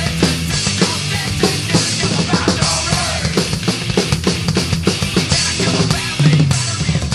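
A drum kit played hard along to a heavy-metal backing track, with fast, steady drum hits over the band.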